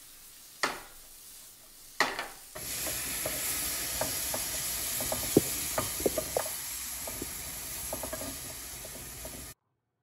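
Diced onion, bell pepper and tomato sizzling in a hot nonstick frying pan, with a spatula scraping and clicking against the pan and a ceramic bowl as the filling is scraped out. Two sharp knocks come first; the sizzling sets in about two and a half seconds in and cuts off suddenly near the end.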